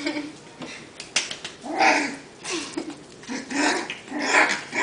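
Four-week-old labradoodle puppies giving short whining, yipping calls that bend in pitch, five or six of them, with a few sharp clicks about a second in.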